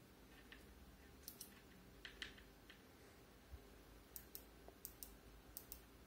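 Near silence, broken by faint, sharp little clicks, several coming in quick pairs, from jumper wires being handled and touched against a breadboard.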